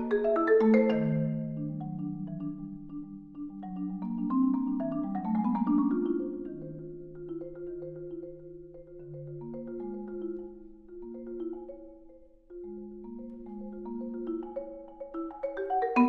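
Solo concert marimba played with four yarn mallets: long rolled notes and chords in the low and middle register, fading softer through the middle, then a loud quick run of notes breaks in near the end.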